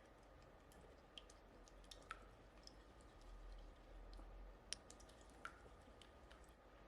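Faint, scattered small clicks and light taps at irregular intervals over a very quiet background.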